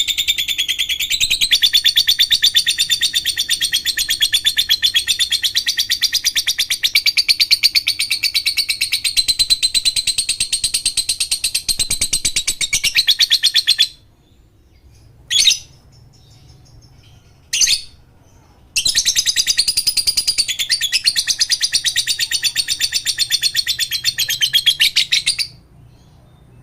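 Lovebird ngekek: a long, fast, high chattering trill lasting about fourteen seconds, then two short chirps, then a second long trill of about six seconds.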